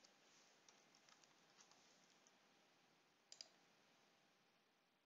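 Near silence, with faint keystrokes of typing on a computer keyboard and then a quick pair of mouse clicks a little past three seconds in.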